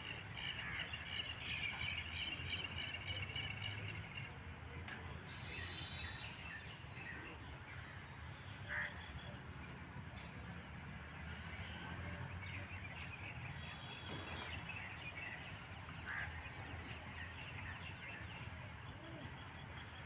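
Birds chirping and calling on and off, with short trills, over a steady low background hum.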